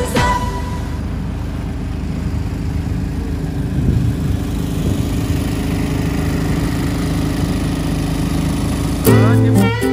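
Engine of a small wooden passenger boat running steadily under way, a constant low hum with a wash of noise over it. Guitar music cuts in near the end.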